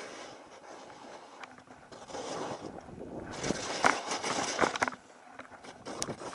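Rocky Mountain Underground North Shore 114 skis sliding and carving through deep powder snow: a rushing hiss that swells and fades with each turn, loudest in surges about halfway through and again near the end.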